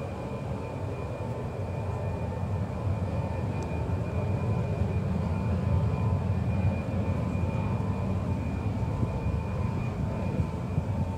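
Tu-154M's three Soloviev D-30KU-154 turbofans running at taxi power: a steady rumble with a thin, steady whine over it, growing a little louder midway as the jet passes.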